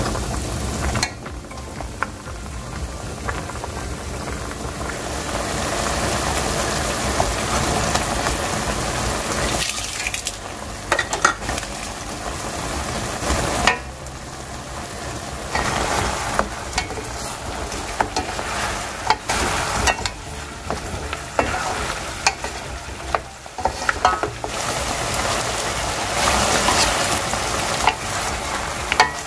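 Pork ribs braising in a soy-based seasoning sauce sizzle and bubble in a pan over medium-high heat as the sauce reduces, with a spatula stirring and clicking against the pan. The sound changes abruptly a few times.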